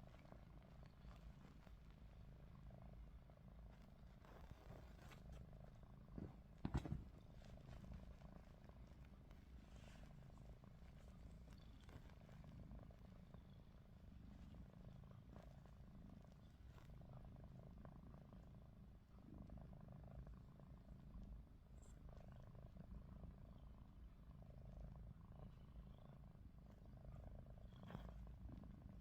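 Faint, steady low rumble of a domestic cat purring, the snore-like sound it makes while awake with its eyes open. A brief thump about six and a half seconds in is the loudest thing.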